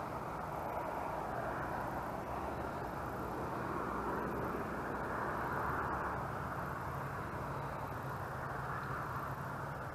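Steady distant engine drone that swells around the middle and eases off again.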